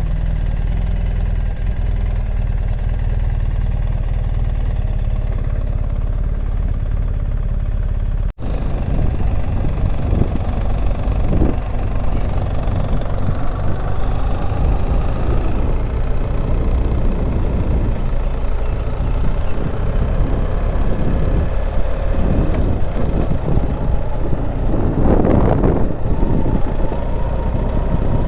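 A vehicle being driven: steady engine and road noise. The sound cuts out for an instant about eight seconds in, and after that the road noise is rougher.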